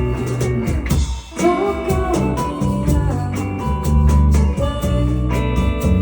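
A band playing an acoustic song live, guitar to the fore over a steady bass, with a brief break in the sound about a second in before the playing resumes.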